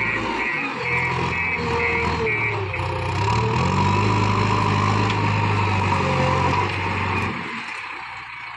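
Backhoe loader's diesel engine running under load. It revs up about three seconds in, holds high, then eases off and drops away near the end.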